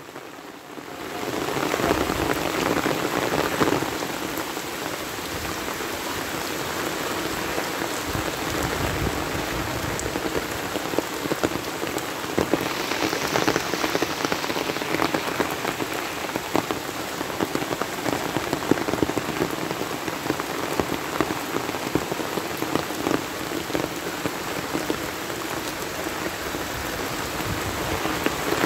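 Heavy rain pouring onto floodwater, countless drops splashing on the standing water in a dense, steady patter that builds up over the first second or two. A brief stronger, higher hiss comes about halfway through.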